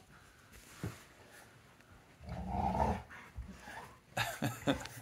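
Pit bull growling in play over a ball: one low, rough growl of about a second, a little after two seconds in, followed by a few short sharp sounds near the end.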